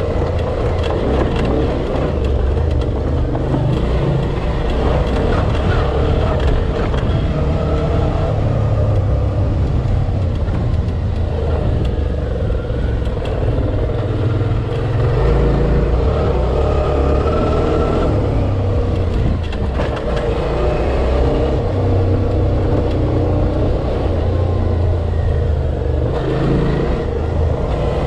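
Dual-sport motorcycle engine running steadily as the bike rides along an off-road trail, with scattered short knocks and clatter.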